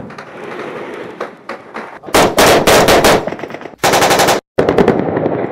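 Automatic gunfire in a firefight, very loud: scattered single shots, then long rapid bursts from about two seconds in, broken by a brief gap near the end.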